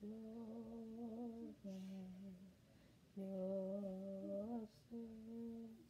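A woman humming a slow melody in four long held phrases, each separated by a short pause.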